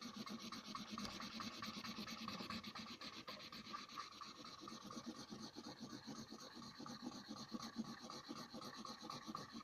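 Felt-tip marker scribbling rapidly back and forth on paper, a steady scratchy rubbing as an area is coloured in.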